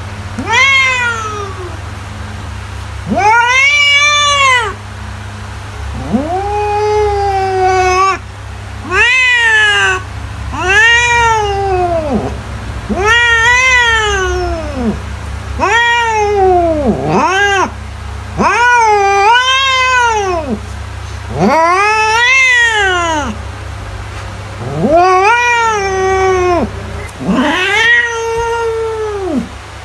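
Domestic cat meowing over and over: about a dozen loud, drawn-out meows in a row, each a second or two long, rising and then falling in pitch.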